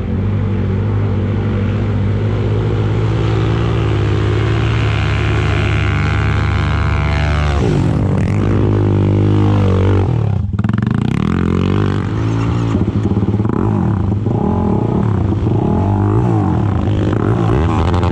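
Yamaha sport ATV engine held at high revs under load climbing a sand dune, a steady droning note. About halfway through the pitch swings up and back down, then after a brief break the engine revs up and down unevenly.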